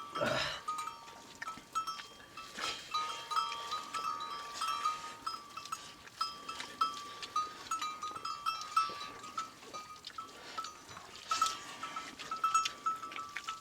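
Flock of sheep and goats with small neck bells clinking over and over, and a few bleats.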